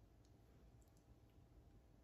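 Near silence: room tone with a few faint, short clicks from lips and lipstick as lipstick is stroked onto the lips.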